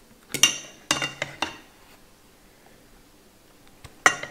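Metal ladle clinking against a saucepan while sauce is scooped out: a quick run of clinks in the first second and a half, then one more about four seconds in.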